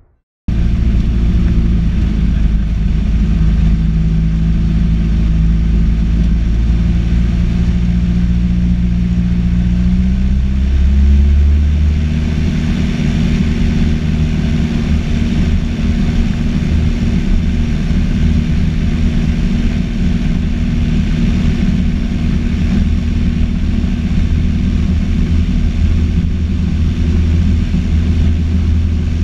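Cessna 152's four-cylinder Lycoming O-235 engine and propeller running at power, heard inside the cabin during the take-off roll. The note shifts and grows fuller about eleven seconds in, then holds steady.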